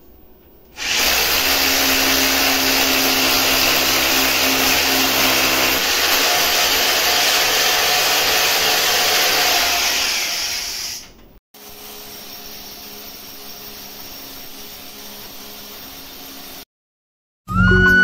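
Electric power tool, drill-like, running steadily for about ten seconds with a motor whine. After a cut a quieter steady machine hum follows for about five seconds.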